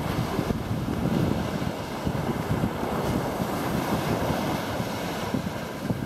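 Wind buffeting the microphone in uneven gusts over the wash of small ocean waves running up a sandy shore.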